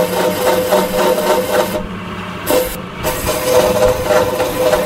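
Compressor opener's cutting blade running against the welded steel collar of a sealed reciprocating compressor: a steady machine hum with a rasping scrape that pulses about three times a second. The scraping eases briefly around the middle.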